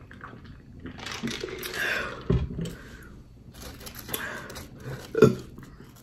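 Close-mic eating sounds: drinking from a bottle and a breathy exhale, ending in a sharp thud about two seconds in as the bottle is set down. Then crinkle-cut fries are handled on the plate, with a sharp knock about five seconds in.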